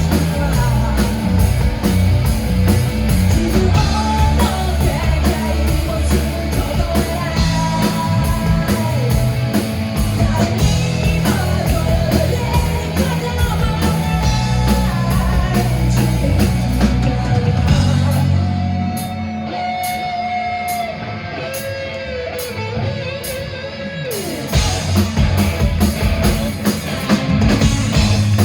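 Live rock band playing a song with electric guitar, bass, drum kit and singing. About two-thirds of the way in the drums and low end drop out for a few seconds, leaving held guitar and vocal notes, then the full band comes back in.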